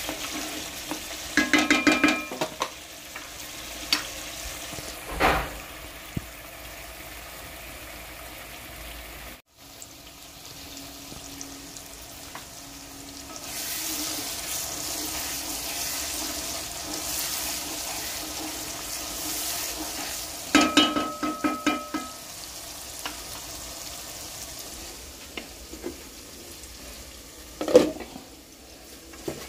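Food sizzling steadily in hot oil in a pan while being stirred. Twice, near the start and about two-thirds of the way in, a metal utensil clinks and rings against the pan in quick clusters, with a few single knocks in between.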